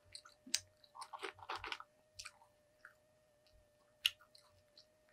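Close-miked chewing and biting of fast food (fries and a burger): soft mouth sounds and small wet clicks, busiest in the first two seconds, with one sharp click about four seconds in.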